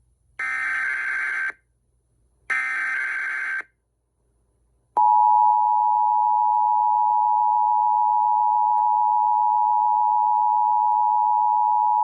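Emergency Alert System encoder sending its SAME header: two bursts of harsh digital data squawk, each about a second long and a second apart. About five seconds in, the EAS two-tone attention signal (853 and 960 Hz together) comes on and holds steady and loud.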